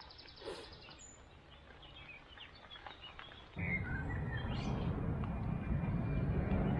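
Faint bird chirps over quiet outdoor ambience. About halfway through, a steady rushing noise cuts in suddenly and stays, louder than the birds.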